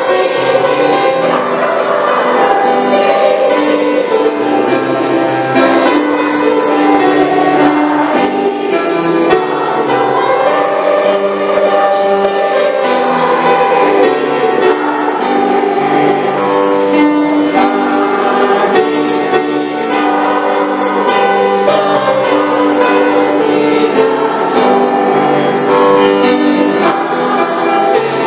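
Music with long held notes and a flowing melody.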